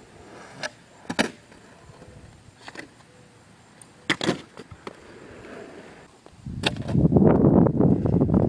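Longboard on asphalt: a few sharp clacks of the board hitting the road, the loudest about a second in and about four seconds in as the board is popped, flipped and landed. From about six and a half seconds comes a loud, rough rumble of the wheels rolling on asphalt close to the microphone.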